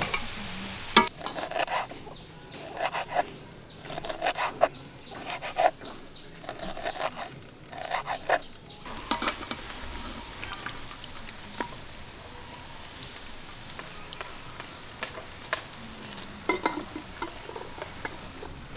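Potato fries sizzling in hot oil in a wide metal pan, with a metal slotted spoon stirring and lifting them. For about the first nine seconds the spoon scrapes and clatters against the pan; after that, mostly a steady sizzle with a few light clicks.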